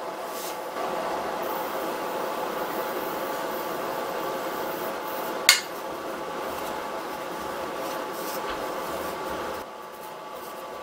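A metal ladle rubbing and scraping through granulated sugar heaped over strawberries in a stainless steel pot, a steady grainy rasp with one sharp clink of the ladle against the pot about five and a half seconds in. The rasp stops shortly before the end.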